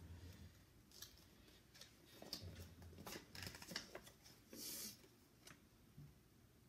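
Faint rustling and crinkling of a paper instruction leaflet being opened and handled, with one brief louder rustle about two-thirds of the way in.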